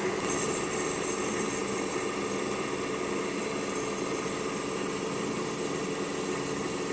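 Surface grinder running steadily, its resin-bonded diamond wheel spinning while a square high-speed-steel broach blank is fed lightly against the wheel face, taking a very light cut. A steady motor hum and hiss, with a brighter high hiss in the first second or so.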